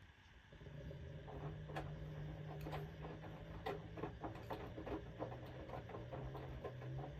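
Washing machine running: a steady low motor hum with irregular clicks and knocks, several a second.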